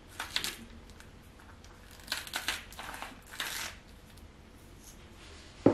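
Hand-twisted salt grinder grinding salt in several short, gritty bursts, followed near the end by a single sharp knock.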